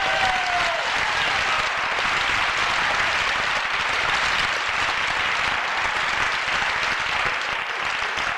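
Audience applauding, a steady dense clapping that thins a little near the end.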